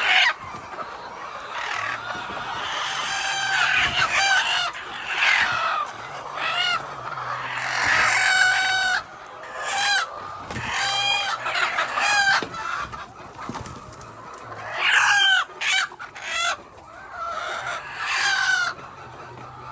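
Chickens clucking and squawking in repeated short calls, with what sounds like a rooster crowing among them. A faint low hum runs underneath.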